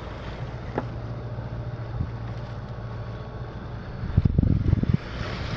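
A sailing yacht's inboard engine running steadily. Wind buffets the microphone in gusts about four seconds in.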